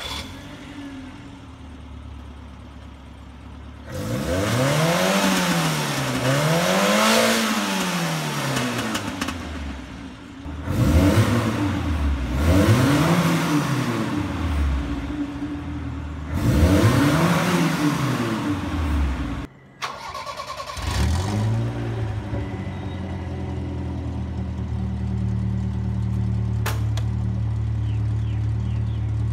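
Carbureted Toyota 2T inline-four in a Toyota Carina TA60 running through its custom exhaust with a bullet resonator. It idles, is revved in four rising and falling throttle blips, then settles back to a steady idle.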